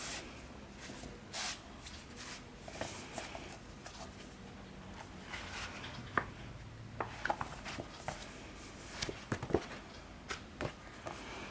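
Paperback manga volumes being handled: rustling of pages and covers with scattered light taps and clicks.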